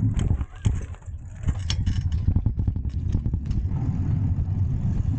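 Wind buffeting the microphone of a moving camera: a steady low rumble that dips briefly about half a second in, with a run of clicks and rattles in the middle.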